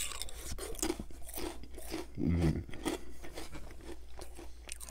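Close-miked chewing of a crunchy cracker with dip: a run of crisp, irregular crunches and wet mouth sounds, with a short low hum about two seconds in.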